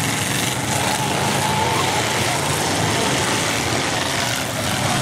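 Engines of several full-size demolition derby cars running and revving together in a steady, dense din, with a few engine notes rising and falling in pitch.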